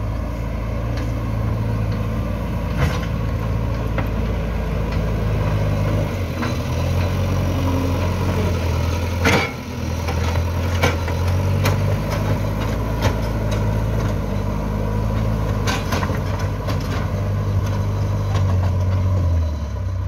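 JCB 3DX backhoe loader's diesel engine running under work, its note shifting several times as the machine drives and works its loader bucket. Occasional sharp metallic clanks, the loudest about halfway through.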